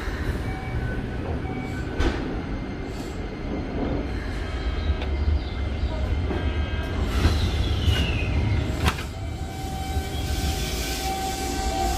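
Toei 5300-series electric train with a Mitsubishi GTO-VVVF inverter rolling slowly along a platform: wheel-on-rail rumble with the inverter's stepped whining tones, and a whine falling in pitch about two-thirds of the way through as it slows, with a couple of sharp clicks.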